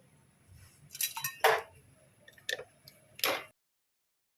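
Sharp metallic clicks and clinks of hand tools and engine parts being handled while a motorcycle's clutch side is taken apart, about half a dozen separate knocks. The sound cuts out completely about three and a half seconds in.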